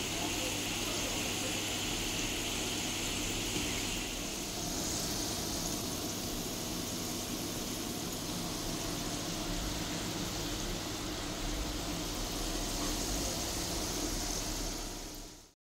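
Small almond-filled pastries deep-frying in a pan of hot oil: a steady sizzling hiss, changing slightly about four seconds in and fading out just before the end.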